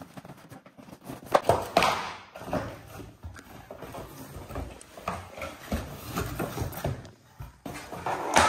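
Cardboard box and packaging being handled: irregular rustling and scraping with a few knocks as an RC car and its cardboard insert are lifted out, and a louder sharp scrape near the end.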